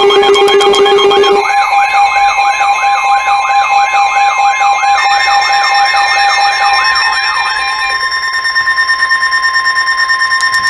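Layered electronic alert tones for an emergency broadcast: a siren-like wail sweeping up and down about two and a half times a second over several steady alarm tones. A low steady tone drops out about a second and a half in. The wailing stops about seven and a half seconds in, leaving steady tones that pulse about four times a second.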